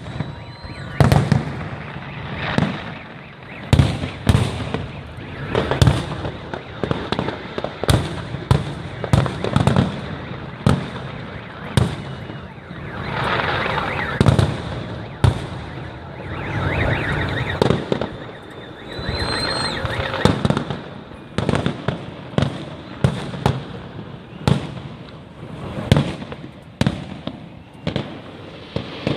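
Fireworks display: shells bursting with sharp bangs, one or two every second, with two stretches of crackling in the middle.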